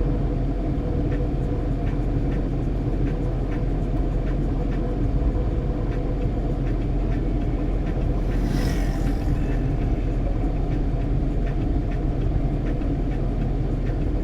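Vehicle engine idling with a steady low hum, heard from inside the cabin, with faint ticking about twice a second. A brief high hiss comes a little past the middle.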